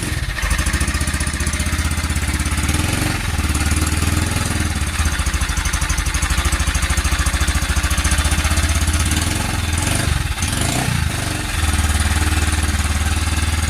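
Honda Cargo 150's single-cylinder engine running just after start-up, with a rattling knock. The mechanic thinks it sounds like the timing chain or worn chain guides; the cam sprocket bolt turns out to be loose and the plastic guide ground up. The throttle dips and is blipped briefly about ten seconds in.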